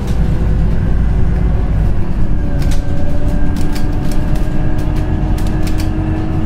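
Cabin sound inside a Scania Citywide LFA natural-gas articulated bus under way: a dense low rumble from the engine and running gear, with a steady whine that comes in about two seconds in. Frequent short clicks and rattles from the interior fittings run through the second half.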